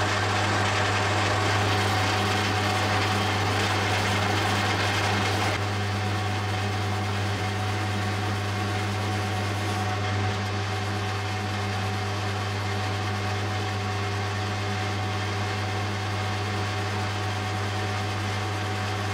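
Metal lathe running with a steady hum while a round high-speed steel cutter turns a cast iron piston to size, with a hiss of cutting over the hum that eases slightly about five seconds in.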